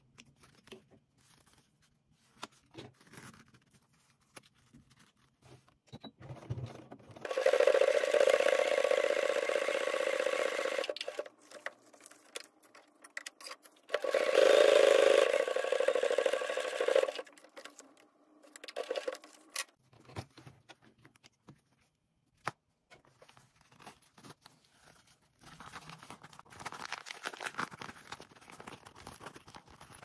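Brother sewing machine stitching through nylon sail fabric in two runs of about four and three seconds, a steady hum. Between and after the runs, soft rustling and scraping of the fabric being handled.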